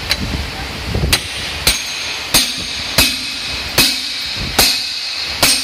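Steel cylinder sleeve being driven into an engine block bore through a steel driver bar set on top of it: a run of about eight sharp metal-on-metal strikes, roughly three every two seconds, each with a short ring.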